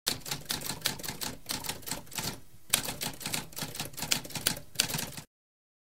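Typewriter keys clacking in quick succession, several strikes a second, with a short pause about two and a half seconds in. The typing stops about half a second before the end.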